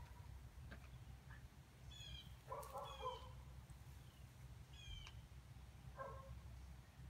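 Near silence: faint outdoor ambience with a low rumble, broken by a few brief, faint high chirps about two, three and five seconds in.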